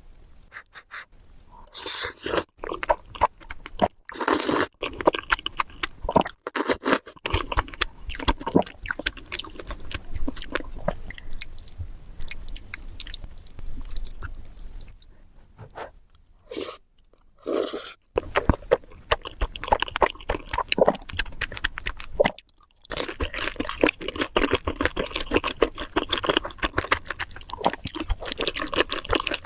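Close-miked eating: crunching and chewing crispy fried chicken in dense crackling bites, with a few short pauses.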